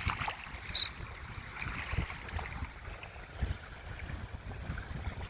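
Wind rumbling on the microphone, with soft, irregular thumps of footsteps on wet sand.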